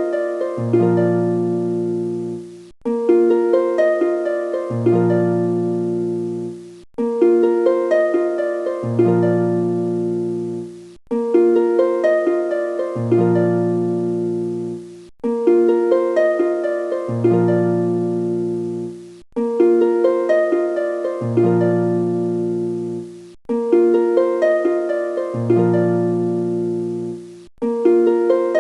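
Background music: a looping plucked-harp phrase with bass notes, repeating the same pattern about every four seconds.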